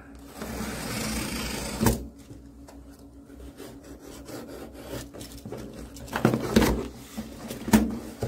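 A utility knife slitting the packing tape on a cardboard box, a rasping cut for about two seconds that ends in a sharp click, then lighter scraping along the tape. Near the end the cardboard flaps are pulled open with a few knocks and rustles.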